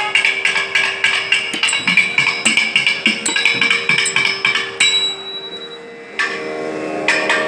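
Thavil drum played in fast, dense strokes over a steady drone. Just past the middle the strokes stop for about a second, leaving the drone, then start again.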